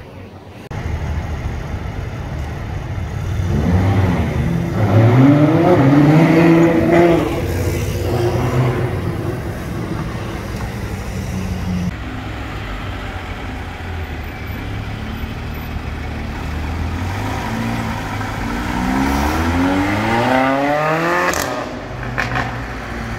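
Supercar engine accelerating twice. A rising pull comes about four seconds in, the engine runs steadier in between, and a second hard rev climbs in pitch near the end before cutting off sharply.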